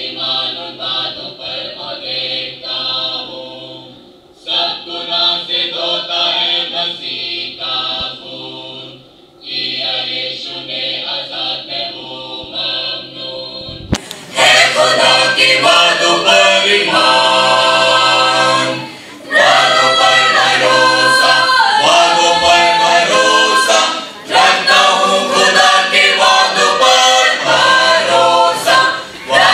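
Mixed church choir of men and women singing a Hindi Christian hymn, with electronic keyboard accompaniment holding a low note underneath. It gets much louder and fuller about halfway through.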